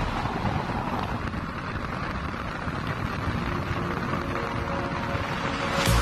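Steady wind noise on the microphone outdoors, an even hiss with a low rumble and no tune. Background music comes back in at the very end.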